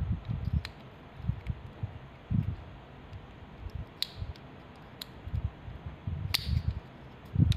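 Small hand-tools and small parts being handled. Rustling and bumping throughout, with four short sharp clicks spread through.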